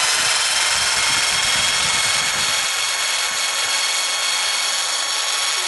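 Electric drill used as a mixer, its whisk beating eggs. The motor runs at a constant speed with a steady high whine.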